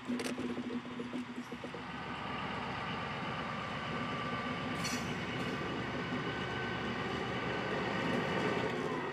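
East German class 112 (V 100) diesel-hydraulic locomotive with its train approaching, its running and the rolling of its wheels growing steadily louder from about two seconds in.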